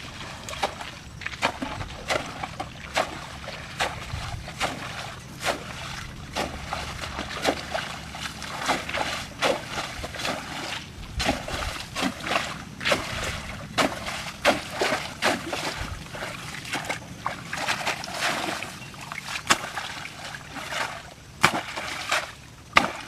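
Water sloshing and splashing in a run of short, irregular splashes.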